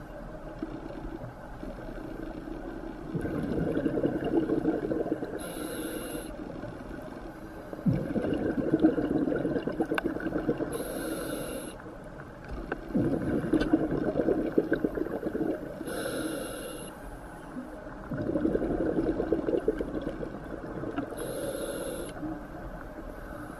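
Scuba diver breathing through a regulator underwater, four breaths about five seconds apart: each is a long rush of exhaled bubbles followed by a short hiss as the next breath is drawn.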